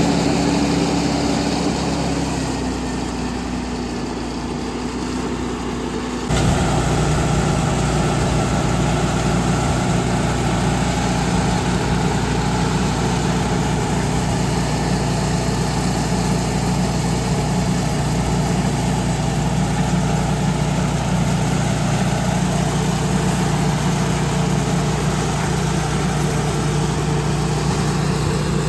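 Heavy road-construction machinery engine running steadily. About six seconds in, the sound abruptly gets louder, with a deeper steady hum.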